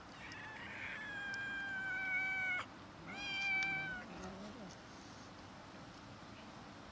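Cat meowing: two high calls, the first long and cut off suddenly, the second shorter, about three seconds in.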